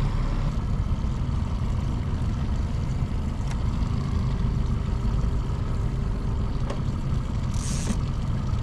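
Outboard motor running steadily at trolling speed, a low, even drone. A brief hiss comes near the end.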